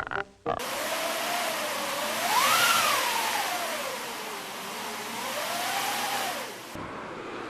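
Howling storm-wind sound effect: a steady rushing noise with a whistling tone that rises and falls twice. It starts about half a second in and cuts off sharply near the end.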